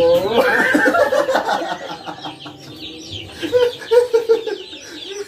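A group of people laughing: a loud vocal outburst at the start, then a few hearty bursts of laughter about three and a half seconds in.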